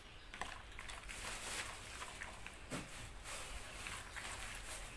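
Metal spoon tossing a wet salad of shredded pomelo and raw shrimp in a plastic bowl: soft rustling and squelching with light clicks and scrapes of the spoon against the bowl.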